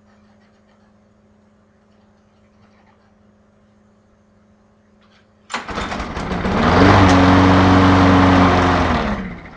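Craftsman walk-behind mower's 6.5 hp Briggs & Stratton engine pull-started. After a quiet stretch it suddenly fires about five and a half seconds in and climbs in pitch. It runs steadily for about two seconds, then winds down and dies: the stubborn hard starting and stalling that the owner can't explain.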